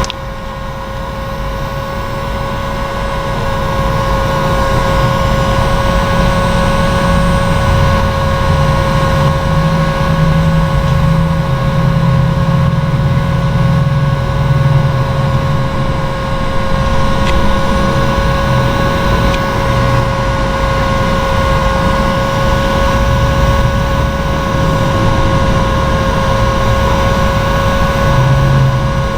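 Electric heat gun running steadily, a constant motor whine over a low rush of blowing air, growing a little louder over the first few seconds.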